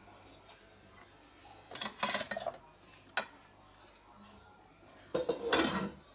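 Plate and dish clatter: china handled and set down on a stone counter, in a short run of clinks about two seconds in, a single click a second later, and a louder clatter near the end.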